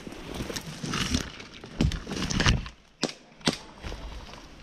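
Brush rustling and twigs snapping as someone pushes through bushes, with several sharp cracks, the busiest stretch about two seconds in and one more sharp crack a second later.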